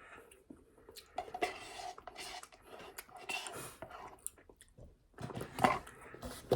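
Scattered light clicks and rustles of tableware and food packaging being handled, with a louder stretch of handling about five seconds in.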